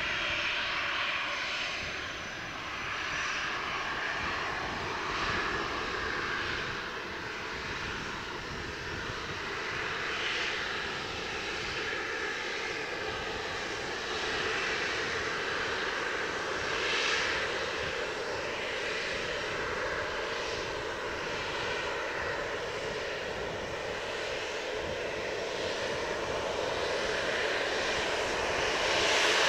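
Twin CFM56-7B turbofan engines of a Boeing 737-800 running at low taxi power: a steady jet whine and rush that grows louder near the end as the airliner nears. Gusty wind rumbles on the microphone underneath.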